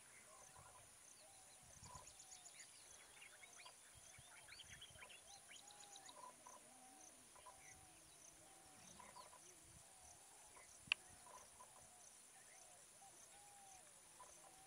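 Faint chorus of birds: short, repeated, curving calls and quick high chirps over a steady high-pitched drone, with a single sharp click about eleven seconds in.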